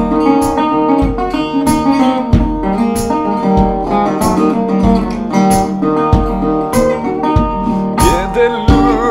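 Resonator guitar playing an instrumental break: picked notes and chords over a steady low thump about every second and a quarter, with notes bending and wavering near the end.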